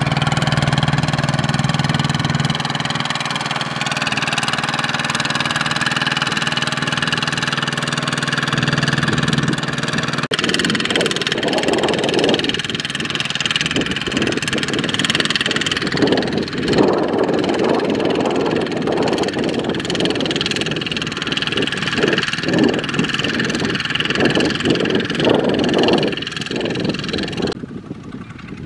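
Single-cylinder diesel engine of a two-wheel walking tractor running steadily while pulling a loaded rice trailer across a field. About ten seconds in the sound changes abruptly to a more uneven, irregular engine note.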